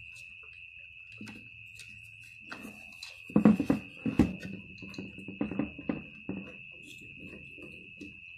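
Hands fitting plug-in connectors and wiring inside an opened inverter welder's case: clicks, knocks and rustling, loudest at about three and a half and four seconds in. A steady high-pitched tone sounds underneath.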